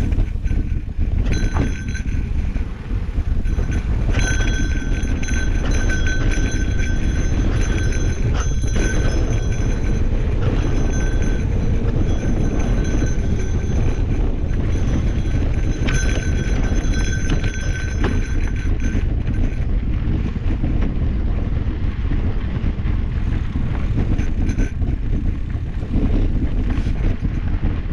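Mountain bike rolling over dirt singletrack: a steady rumble and rattle from the tyres and bike, with wind on the camera microphone. A high-pitched buzz comes and goes through the first two-thirds.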